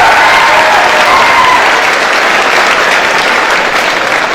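Audience applauding, loudest at the start and slowly dying down, with a few voices calling out over it near the start.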